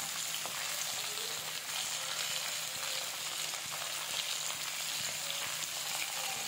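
Oil sizzling steadily as raw banana pieces and potato cubes shallow-fry in a kadai, with a few faint ticks.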